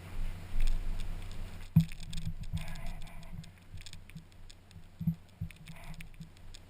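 Irregular clicks, light knocks and rattles, sharpest about two seconds in and again about five seconds in, over a steady low hum.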